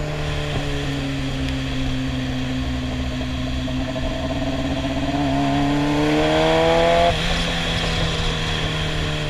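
A sportbike's engine under way: it holds a steady note, then the revs climb for about two seconds, getting louder, and drop sharply about seven seconds in before settling back to a steady, lower drone.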